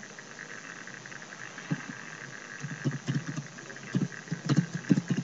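Computer keyboard being typed on: a run of short key clicks that starts a little under two seconds in and comes faster toward the end, over a steady hiss.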